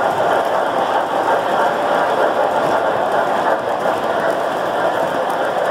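O gauge model train running along the layout's track, heard from the gondola car it pulls: a steady, dense rattle of wheels and running gear on the rails.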